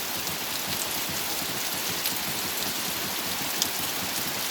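Steady rain falling, with a few louder single drops.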